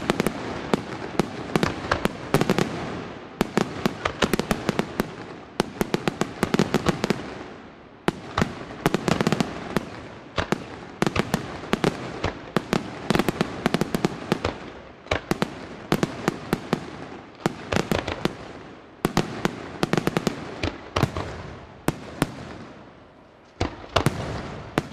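Aerial fireworks shells bursting in rapid volleys: dense runs of sharp bangs that come in waves every second or two, with crackling between them.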